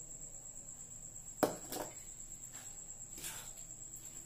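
Metal spoon scraping powdered sugar out of a measuring cup and knocking against a steel bowl, with one sharp clink about a second and a half in and a few softer scrapes after it. A steady high-pitched whine runs underneath.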